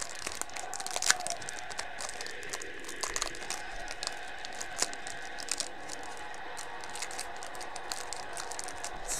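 Clear plastic wrapping crinkling and crackling under the fingers as a sealed pack of football cards is worked open, with scattered small clicks and one sharper snap about a second in.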